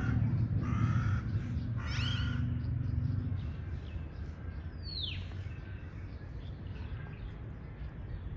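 A stray cat meowing, three short meows in the first couple of seconds over a steady low hum that stops about three seconds in. About five seconds in, a single high call falls sharply in pitch.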